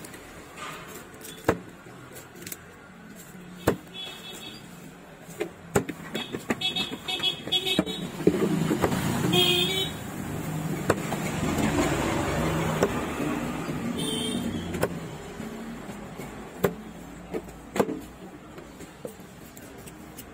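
A heavy knife chopping through lizard fish and striking a wooden cutting block, sharp single knocks every second or few. Traffic runs behind it, with short horn toots and a vehicle passing, louder in the middle.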